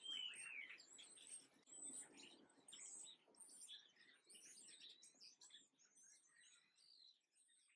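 Faint chorus of small songbirds chirping, many short overlapping chirps and a few falling whistles, thinning out near the end.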